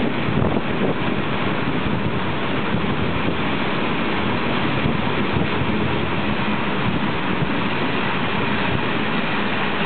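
Steady rushing noise of a moving passenger train, heard from an open carriage window: wheels running on the rails with air rushing past.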